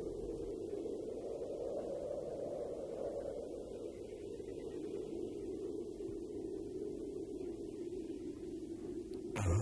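A steady low hum, with no speech or music; a louder sound starts just before the end.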